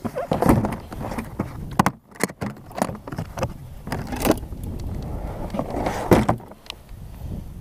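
Hard plastic sled box being handled: a lid and a storage tray clack, knock and scrape against the plastic in a run of uneven strokes, the sharpest knocks about half a second in, near two seconds, past four seconds and around six seconds.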